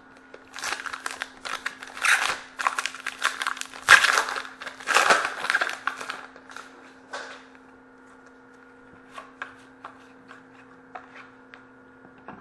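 A hockey card pack's wrapper being torn open and crumpled, a loud crackling for about the first six seconds, followed by a few faint ticks of cards being handled.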